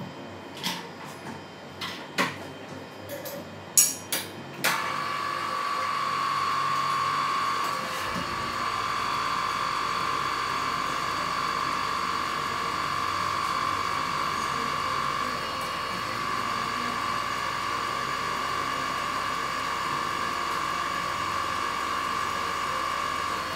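A few sharp metallic clicks and knocks, then about five seconds in a drill press motor starts and runs steadily with a high whine. The drill press is used to drill metal out of the unbalanced spot on a Mercedes-Benz V8 crankshaft.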